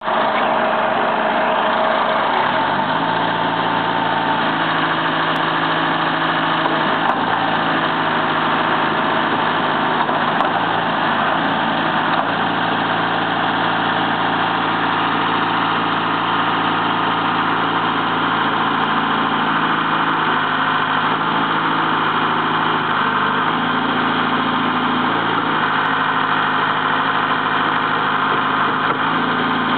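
Caterpillar 416B backhoe loader's turbocharged diesel engine running steadily while its hydraulics work the stabilizer legs and backhoe boom. The engine note changes about two and a half seconds in and shifts again briefly later, as the hydraulic load changes.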